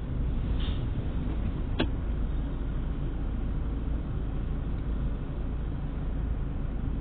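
Steady low rumble heard inside a stopped car, with cross traffic passing in front, including a city bus. One sharp click about two seconds in.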